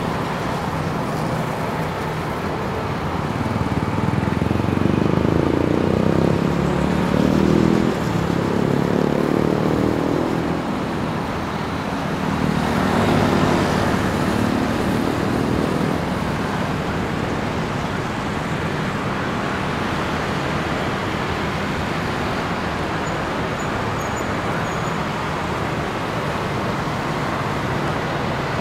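Street traffic: a steady hum of passing vehicles, with engines passing close by, their pitch rising and falling, about four to ten seconds in and again around thirteen to fifteen seconds in.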